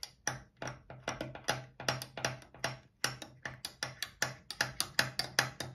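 Long metal spoon clinking against a tall glass as a falooda is stirred briskly: a quick, even run of light clicks, about five a second.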